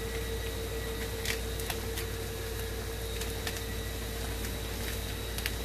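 A few faint crinkles and ticks from a paper seasoning packet being handled and torn over a skillet, over a steady hiss and a constant hum.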